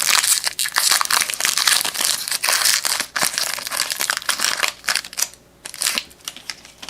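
Plastic wrapper of a trading card pack being torn open and crinkled, loud and crackly for about five seconds, then dying down to a few light rustles near the end.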